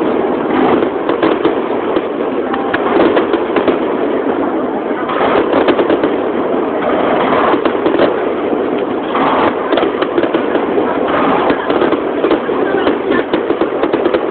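Aerial firework shells bursting in rapid succession close to the launch site: a dense, continuous run of bangs over a steady rumble.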